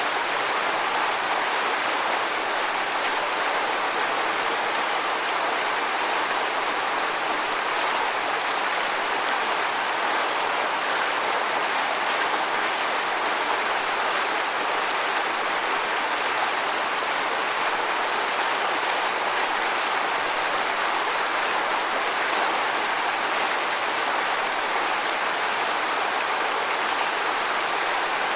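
Waterfall: water pouring and splashing in a steady, even rush with no breaks.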